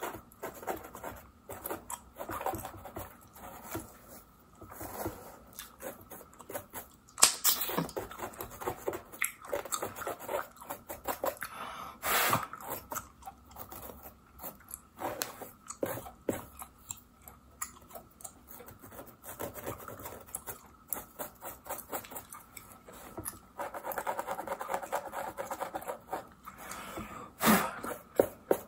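Close-miked gum chewing with wet smacking, mixed with the fine scratching of a plastic fine-tooth comb on a mannequin's scalp and hair. Three much louder sharp clicks stand out, a third of the way in, near the middle and near the end.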